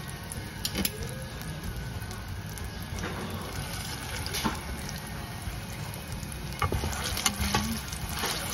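Plantain slices deep-frying in hot oil, a steady sizzle, with a few sharp clicks of metal tongs against the pot as the pieces are put in and moved.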